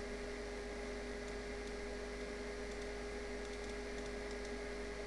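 Steady electrical hum with hiss and a few faint ticks: the background noise of the recording, with no other sound.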